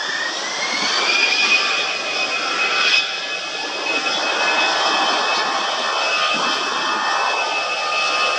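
Airbus A319 twin-jet's turbofan engines spooling up for take-off: a whine rising in pitch over the first second and a half, then holding steady over a loud, even roar at take-off power.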